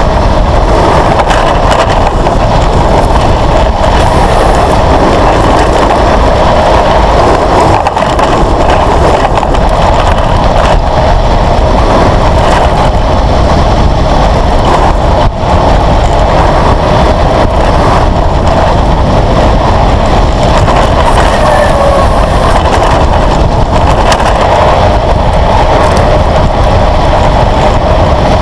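Steady, loud rush of wind on the microphone and tyres rolling on asphalt as a low vehicle runs downhill at speed, with a short dip in the noise about halfway through.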